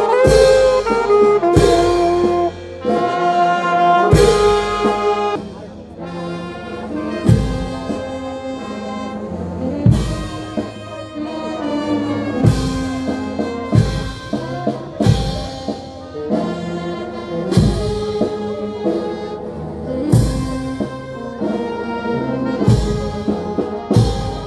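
Brass band of saxophones, trumpets and sousaphone playing a procession tune, with drum strokes every second or two. The band is louder at first and quieter from about five seconds in.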